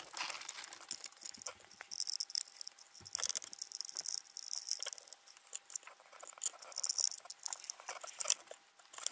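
A screwdriver working a screw in a cheap plastic multimeter case while the case is handled: irregular light clicks, taps and rattles with short scratchy scraping.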